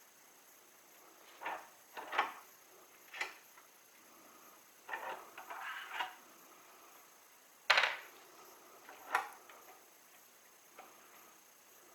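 Scattered light knocks and clicks of small hard objects being handled and set down, about six in all, with a brief rustle near the middle; the sharpest knock comes about two-thirds of the way in.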